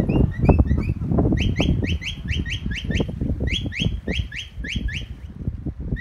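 A shepherd's whistle commanding a working sheepdog: quick runs of short rising whistled notes, about six a second, repeated in several bursts. Heavy wind rumbles on the microphone underneath.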